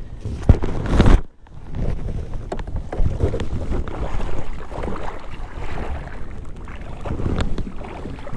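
A blue catfish splashing in a landing net beside a kayak as the net is hauled aboard, with scattered knocks of the net handle on the hull and wind on the microphone. A loud rushing burst comes about a second in.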